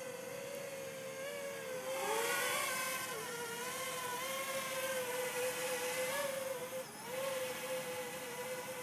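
JME quadcopter drone's propellers whining in flight: a steady buzzing tone whose pitch wavers as it manoeuvres. It grows louder about two seconds in and dips briefly near the end.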